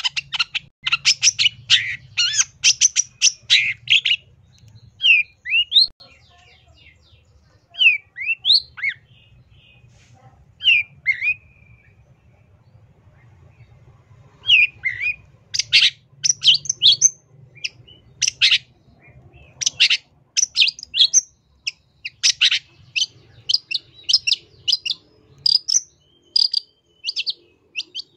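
Long-tailed shrike (cendet) singing: fast runs of sharp chattering notes, then a few separate rising and falling whistled notes, a short lull, and another long run of quick notes.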